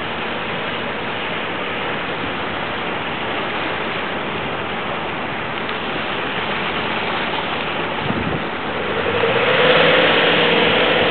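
Suzuki 25 hp V-twin outboard engine on a small boat running under way, heard over a steady noisy wash. About nine seconds in, the engine's hum gets louder and clearer as the boat comes close.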